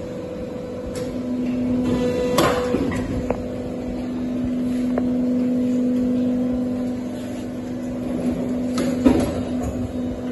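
Hydraulic machine running, its motor and pump giving a steady hum that comes in about a second in, with a sharp click or knock a couple of seconds later and another near the end.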